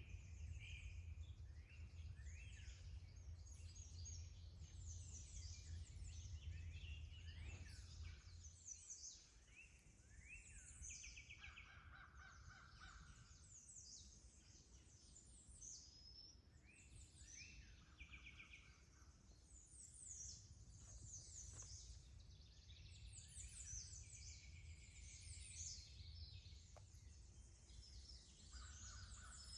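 Faint chorus of several songbirds singing at once, with many overlapping high chirps and trills. A low rumble sits under them for about the first eight seconds.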